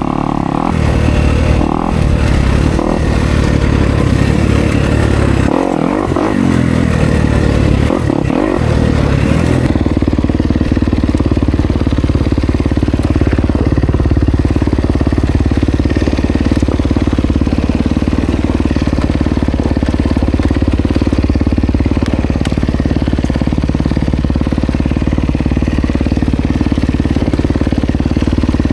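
Kawasaki KX250X dirt bike's single-cylinder four-stroke engine running under the rider. It is uneven, with short throttle chops and dips, for about the first ten seconds, then runs steadily for the rest.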